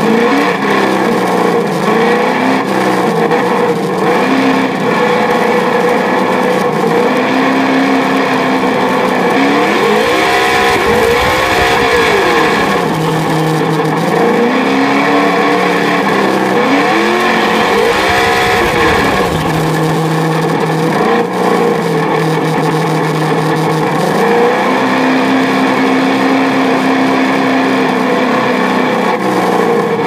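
Add-on sound module in a 1/10-scale Traxxas RC rally truck playing a loud synthetic engine note through a small speaker, idling steadily and revving up and down several times.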